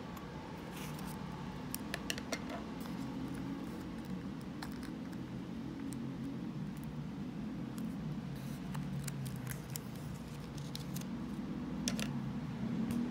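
Small scissors snipping through origami paper, then the paper rustling and creasing as it is folded by hand, in scattered short clicks and crinkles over a steady low hum.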